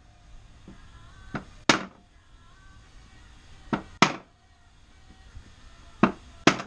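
Six sharp knocks in three pairs, about two seconds apart: a new rear main seal being tapped into place around the crankshaft.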